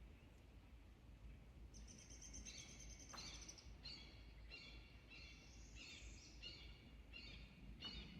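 A bird singing faintly: a run of short repeated notes, a little under two a second, starting about two seconds in, over a low steady rumble.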